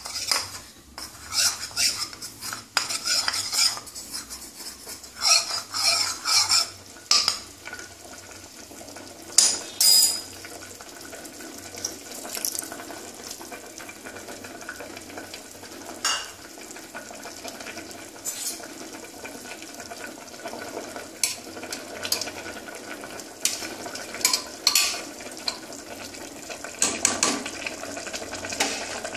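A steel spoon clinking against a bowl as cornflour is stirred into water, then scraping and clinking in an aluminium pressure cooker as the mixture is stirred into the stew. The clinks come thick in the first ten seconds and again near the end, over a steady low hiss.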